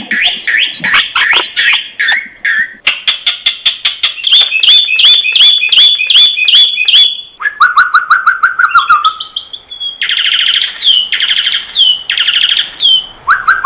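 Common myna calling: fast runs of repeated whistled notes, then a lower-pitched series about halfway through, and three harsh, rasping bursts in the last few seconds.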